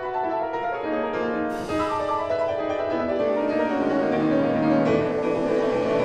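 Grand piano playing a contemporary classical solo piece: dense, overlapping notes ring into one another, and the line moves lower in the middle.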